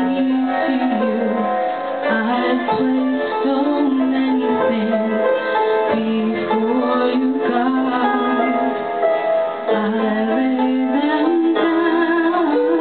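Music: piano with a sustained melody line above it that holds notes and slides between them.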